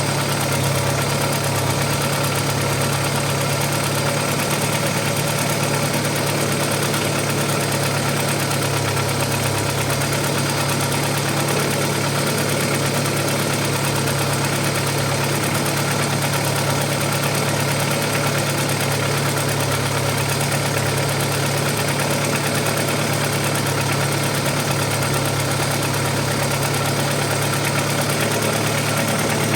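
Audi 80 B4's 2-litre four-cylinder petrol engine idling steadily while warming up, with a knock slowly starting to come through, which the owner takes for a hydraulic lifter.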